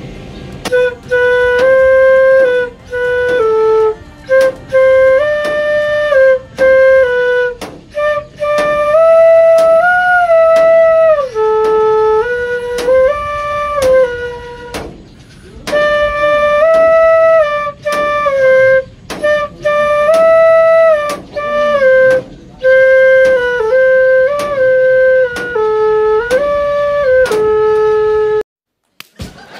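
Bansuri (bamboo transverse flute) played solo by a learner: a slow melody of held notes stepping up and down, with short breaks between phrases. The playing stops abruptly just before the end.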